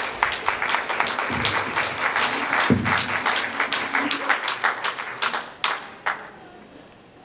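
Audience applauding, many hands clapping, thinning out and dying away after about five and a half seconds.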